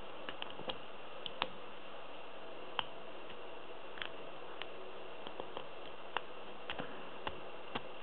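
Pin-tumbler lock being picked: a hook pick working the pins of a five-pin Azbe cylinder makes small, irregular metallic clicks, about fifteen in all, over a steady hiss.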